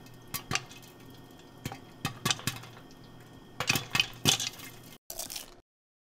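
Kitchen clatter of dishes and cutlery: a string of sharp clinks and clicks over a low steady hum, busiest about four seconds in. After a brief break comes a short noisy burst that cuts off suddenly about five and a half seconds in.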